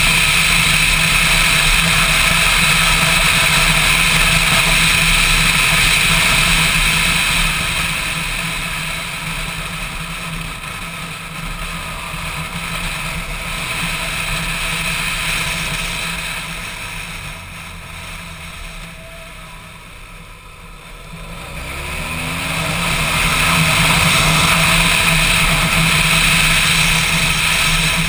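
Motorcycle engine running with wind rushing over the mic while riding. The sound grows quieter through the middle, then climbs back with the engine revving up about three-quarters of the way in.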